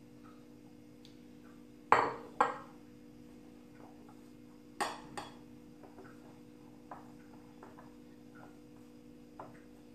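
Sharp clinks of glass and ceramic against a stone countertop: a glass water jar set down and a ceramic mixing bowl knocking while stiff flour dough is kneaded by hand. Two loud clinks come about two seconds in and two more near the middle, then a few light taps, over a steady low hum.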